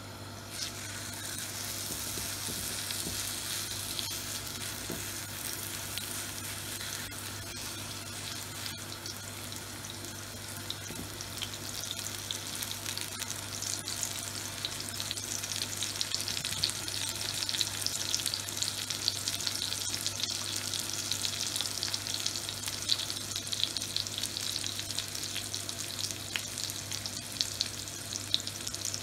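Chapli kebab patties of spiced minced meat sizzling in hot oil on a flat griddle pan, a dense hiss with fine pops. The sizzle starts as a second patty is laid in the pan and grows louder and busier from about halfway through.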